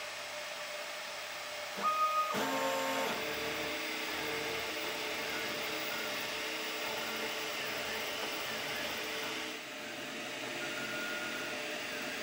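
Velleman Vertex K8400 3D printer printing: a steady fan hiss with its stepper motors whining in changing pitches as the print head moves. The motor whine is loudest about two seconds in, with three quick pulses and a run of stepped tones.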